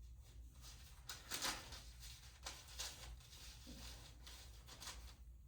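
A few faint, short clicks and rustles, about six spread through a quiet room.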